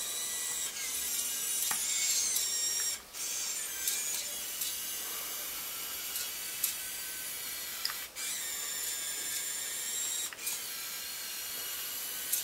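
Small electric drive motors of a 1:32 scale RC John Deere 8360RT tracked tractor whining at high pitch as it drives and steers, the pitch shifting as one motor is slowed against the other to turn. The whine cuts out briefly three times as the motors stop and restart.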